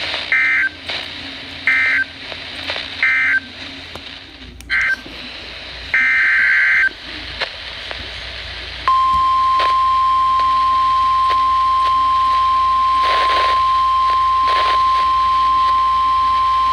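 Emergency Alert System SAME data bursts, five short screechy warbling bursts, followed from about nine seconds in by the steady NOAA Weather Radio 1050 Hz warning alert tone, which signals that a warning message is about to be broadcast.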